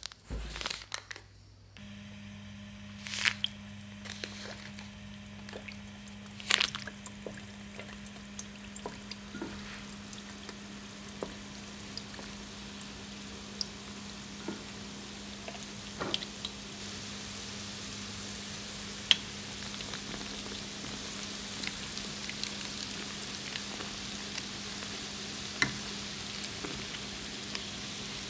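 Churro dough sticks deep-frying in hot oil in a pan: steady sizzling and bubbling with scattered small pops, growing louder and brighter through the second half. A few sharp knocks come in the first seven seconds.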